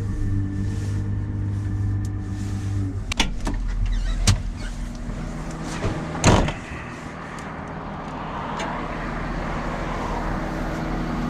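Cat 930 wheel loader's diesel engine running as the machine drives along. The engine note drops about three seconds in, and a few sharp knocks come through, the loudest about six seconds in.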